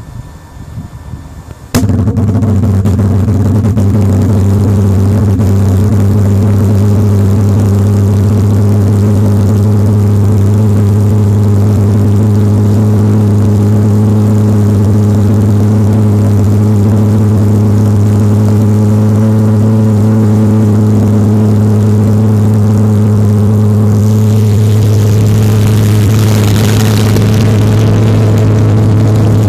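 Homemade valved pulse jet, converted from a Lennox Pulse furnace combustor, lighting off suddenly about two seconds in and then running steadily with a very loud, low buzzing drone. A rushing hiss joins in near the end.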